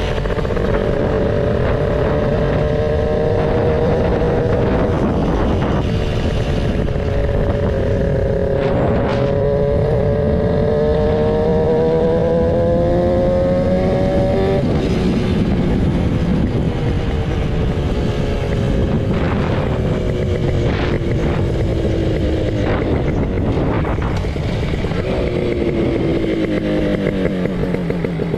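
Suzuki Xipo motorcycle with its home-built two-cylinder two-stroke engine under way, wind and road noise beneath it. The engine note climbs and drops sharply twice, as if shifting gears, then falls slowly as the bike eases off, and picks up briefly again near the end.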